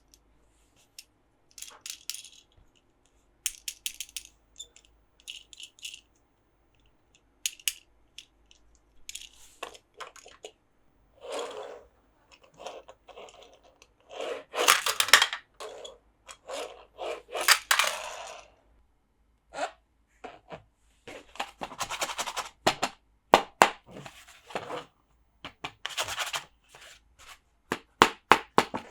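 Plastic toy monster trucks and their packaging being handled close to the microphone: scattered clicks and taps with short bursts of scraping and crinkling, busiest through the middle and again near the end.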